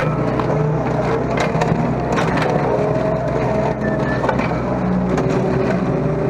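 Mini excavator's diesel engine running steadily under load, with frequent cracks and snaps as its home-built slasher attachment smashes through brush and woody weeds.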